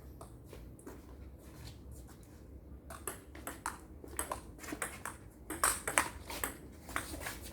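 Table tennis rally: the celluloid/plastic ball ticking off the bats and the table in sharp clicks, sparse at first and then coming quicker and louder after about three seconds.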